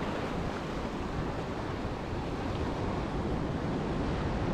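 Steady wind buffeting the microphone over the wash of ocean surf.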